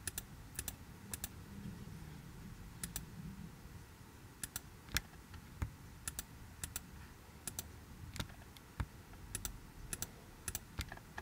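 Faint, irregular clicks of a computer mouse: button clicks selecting polygons and the notched scroll wheel turning to zoom in and out, some clicks coming in quick pairs.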